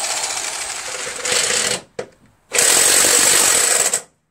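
1/2-inch electric impact wrench hammering on a seized lawn mower engine-mounting bolt in trigger bursts: a run that gets louder near 1.3 s and stops short just before 2 s, then a second loud run from about 2.5 s that cuts off near 4 s. The bolt is stuck fast and strips instead of coming loose.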